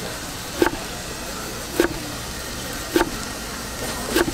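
Large chef's knife slicing down through boiled pig's trotters and knocking on a wooden cutting board: four evenly spaced chops, a little over a second apart.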